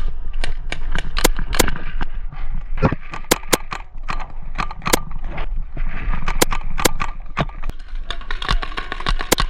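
Paintball markers firing low-impact paintballs, single shots and quick runs of sharp snaps at irregular intervals, over wind rumble on the microphone.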